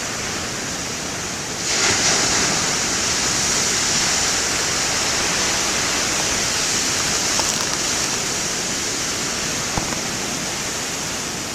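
Heavy surf from big ocean waves: a steady rushing wash that swells sharply about two seconds in as a wave breaks, with a hissing spray, then slowly eases.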